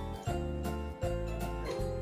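Background music with a steady beat and a bass line that changes note about every half second.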